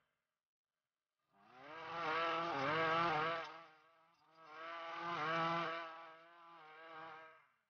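Ryobi RY253SS 25cc two-stroke string trimmer engine, revved up under the throttle while cutting tall grass. It comes in about a second in, surges twice and drops back between, then gives a smaller rise near the end. It runs on a newly installed carburetor that may still need adjusting.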